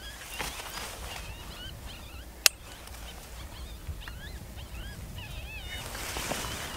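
Electronic predator caller playing coyote pup distress: a string of short, wavering, high yelping whines. About two and a half seconds in there is one sharp, loud click.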